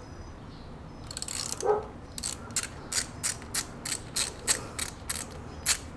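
Hand ratchet with a Torx T40 bit clicking as it backs out a high-pressure fuel pump mounting bolt, about three clicks a second from about two seconds in.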